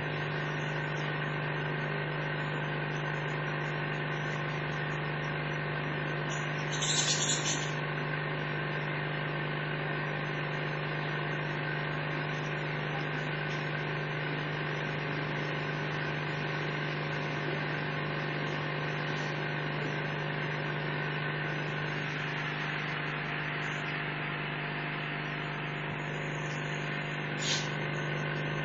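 A steady machine hum with one strong, constant low tone, with two brief hisses, one about seven seconds in and one near the end.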